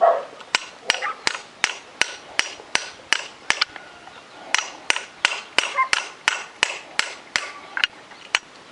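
Hammer striking a steel socket used as a drift, about three sharp metallic blows a second with a short pause about four seconds in. The blows are driving a new ball bearing into the walk-behind tractor's fan-bearing seat. The bearing is a tight fit and is going in dry, without oil.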